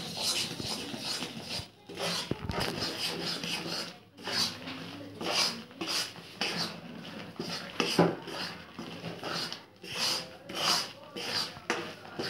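Metal spatula scraping and stirring thick gram flour roasting in ghee around a kadhai, in repeated rasping strokes about one and a half a second. The besan is being stirred without pause so it does not burn on the bottom.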